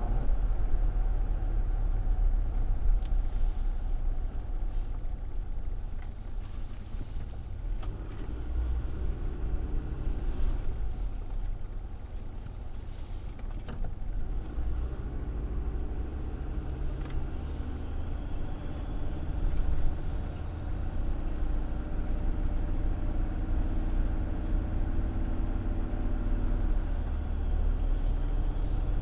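Car driving, heard from inside the cabin through the dashcam's microphone: a steady low road and engine rumble that eases off around the middle, through a turn, and builds again afterwards.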